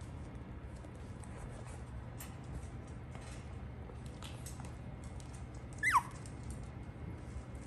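A six-week-old miniature schnauzer puppy gives one short, high yelp about six seconds in, falling quickly in pitch. Faint scratches and clicks of puppies moving about run under it.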